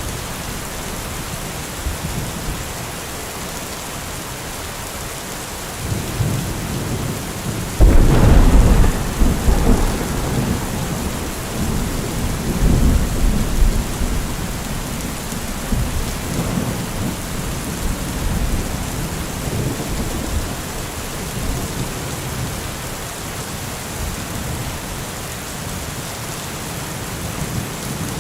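Heavy rain falling steadily in an even hiss. About eight seconds in, a loud, deep rumble starts suddenly and rolls on for several seconds before dying back under the rain.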